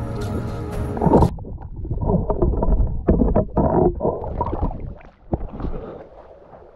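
Background music cuts off about a second in, giving way to muffled water sloshing and gurgling heard through an underwater camera housing as a spearfisher swims and moves in the water. The water sounds grow quieter near the end.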